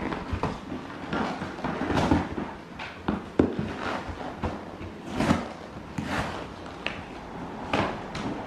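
A dog tearing a cardboard box apart with its teeth and paws: irregular ripping, scraping and crumpling of cardboard, with scattered sharp clicks and knocks.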